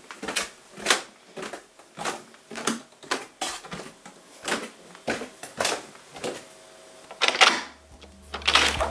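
Footsteps of bare feet going down wooden stairs: a run of soft knocks about two a second, with a louder clatter near the end. Music starts near the end.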